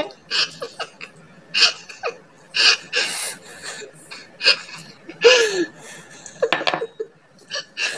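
A woman laughing in short, breathy bursts about a second apart, with one voiced laugh falling in pitch a little past the middle.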